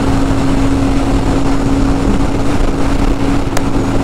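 Royal Enfield Super Meteor 650's parallel-twin engine running at a steady pitch at high speed in fifth gear, held at about 140 km/h, under heavy wind rush. There is a brief click near the end.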